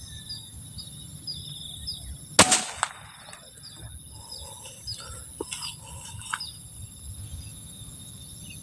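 A single shot from an air rifle firing a 15-grain slug: one sharp crack about two and a half seconds in, the shot that brings down a spotted dove at 72 metres. Crickets and insects trill steadily underneath, with small bird chirps.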